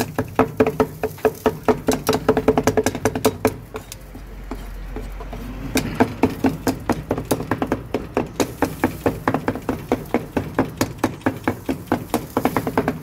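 Grilled kokoreç being chopped with a cleaver on a chopping board: fast, even knocks, about five a second. The chopping breaks off for a couple of seconds about four seconds in, then resumes.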